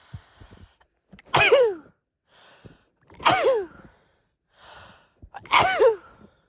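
A woman sneezing three times in a row, about two seconds apart, each sneeze voiced and falling in pitch. Before each sneeze there is a short, hitching intake of breath.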